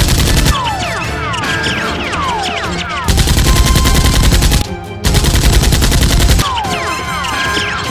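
Dubbed-in automatic gunfire sound effects, matched to toy blasters. Rapid bursts of fire come at the start and again from about three seconds in, with a brief break near five seconds. Between the bursts, falling whistles sound several times in a row.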